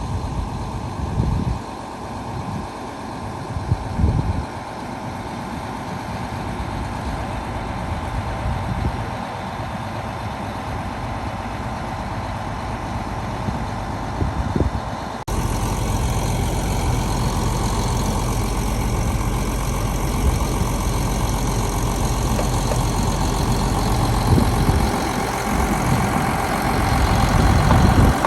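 Heavy diesel truck engine running steadily at a concrete pour, with a few brief low thumps in the first half. About halfway through the sound jumps abruptly to a louder, fuller engine sound.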